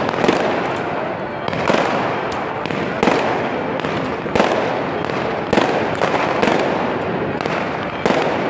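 New Year fireworks going off without a break: sharp bangs from rockets and aerial bursts about once a second over a continuous crackling din.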